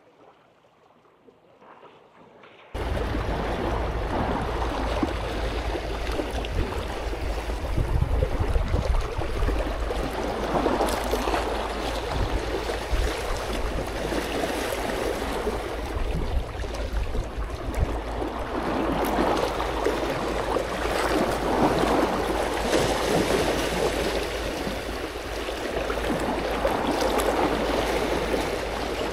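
Sea water washing against a rock seawall, with wind rumbling on the microphone. It starts abruptly about three seconds in after near silence, then runs steadily with swells that rise and fall.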